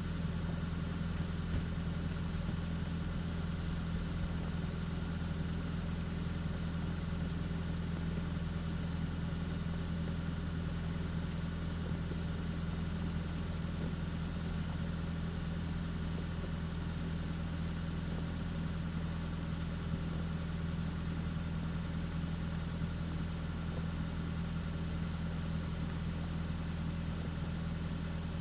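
A steady, unchanging low mechanical hum, like a motor running at a constant speed.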